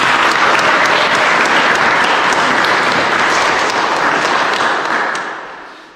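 Applause from a crowd of people clapping, steady and loud, then dying away over the last second or so.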